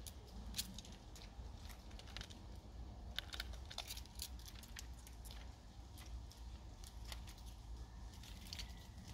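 Scattered light crackles and scratchy clicks of movement over dry bark and fallen leaves, over a low steady rumble.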